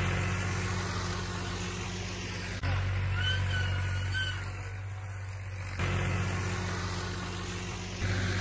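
Farm tractor's diesel engine running steadily as it pulls a cultivator through the field, with its level jumping up or down a few times.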